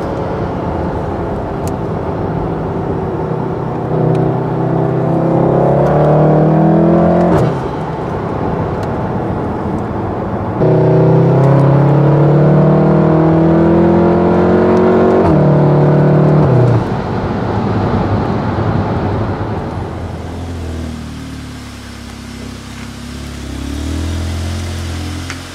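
Car engine heard from inside the cabin, pulling up through the gears: its pitch climbs steadily, drops sharply at a gear change about seven seconds in, climbs again and drops again about seventeen seconds in. From about twenty seconds in it settles to a lower, quieter running.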